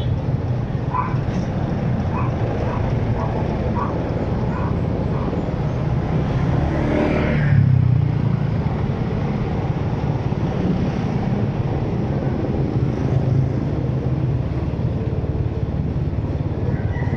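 Vehicle driving along a road: steady low engine and road rumble, with a louder swell about seven seconds in.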